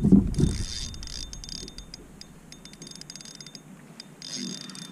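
Spinning fishing reel being cranked, its gears and rotor clicking rapidly as a small fish is reeled in. A loud low thump at the very start.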